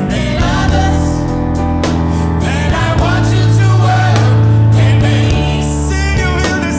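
Gospel worship song: singing over a band, with long held bass notes underneath.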